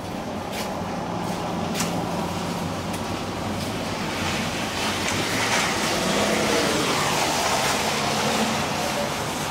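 KONE Transys machine-room-less traction elevator running: a steady hum and rushing noise inside the car as it travels to the floor. In the second half the noise swells as the car arrives and its doors slide open.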